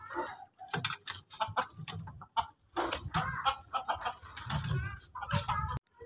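Chickens clucking in short, irregular calls, with scattered sharp knocks; the sound cuts off suddenly near the end.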